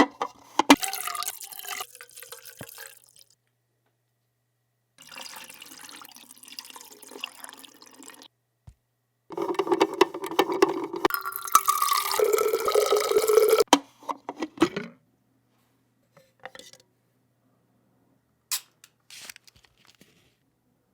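Liquid pouring and splashing into a container in three separate runs, the longest with a clear pitched ring, followed by a few scattered light clicks and drips near the end.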